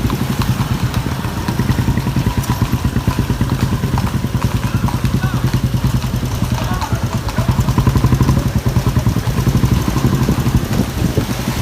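Motorcycle engine running steadily at riding speed, with a rapid, even pulsing exhaust beat.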